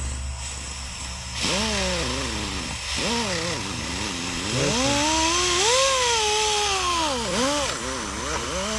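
Power tool spinning a worn abrasive pad against the gasket face of a cylinder head: the motor's whine repeatedly sags and rises as it is pressed in and eased off, over a scrubbing hiss, starting about a second and a half in. A steady low hum runs underneath.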